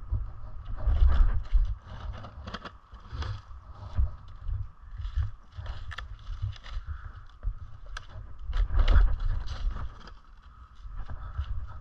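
Irregular footsteps and scuffs on dry leaves and dirt around a Onewheel board, with a few sharper knocks, loudest about a second in and again near nine seconds, under a low rumble of movement on a body-worn camera.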